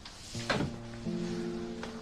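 Background music score of sustained held chords that enter just after the start and shift to a new chord about a second in, with a single sharp knock about half a second in.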